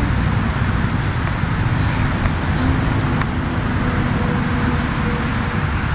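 Steady rumble of road traffic, with a faint engine hum in the middle.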